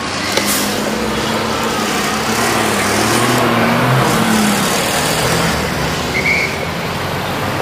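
City street traffic: motor vehicle engines running and passing, a steady road noise with a low engine hum that wavers in pitch.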